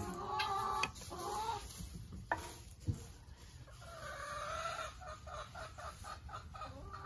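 Chickens clucking and calling: drawn-out calls at the start and around the middle, then a run of quick, evenly spaced clucks. Two short knocks come between two and three seconds in.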